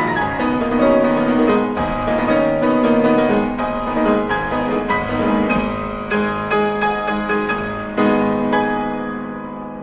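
Background piano music, a steady flow of chords and notes, fading out near the end.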